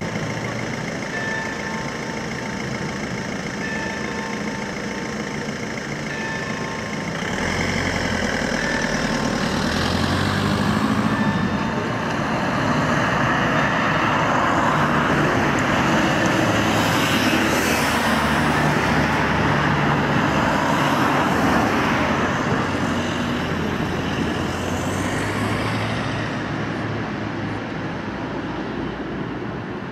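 Street traffic with a city bus coming closer and going past. The noise swells from about seven seconds in, is loudest in the middle and eases off near the end.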